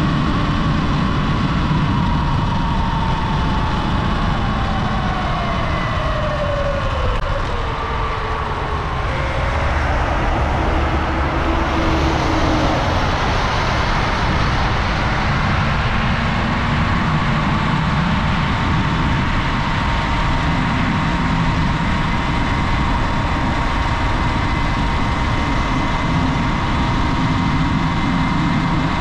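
Sur Ron Light Bee electric dirt bike riding, its motor whine falling in pitch over the first several seconds as it slows, then holding a steady high whine in the second half, over a constant low rumble.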